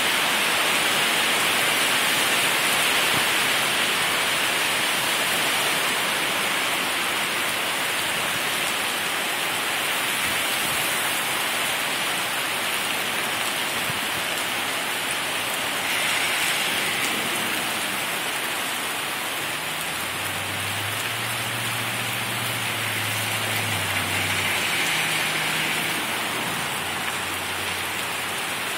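Heavy rain pouring down steadily in a downpour. A low hum comes in for several seconds in the second half.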